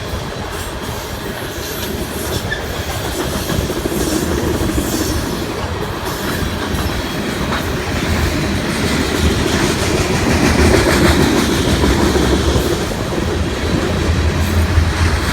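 Loaded BNSF coal train rolling past, its wheels clacking over rail joints in a steady rumble that grows louder about halfway through.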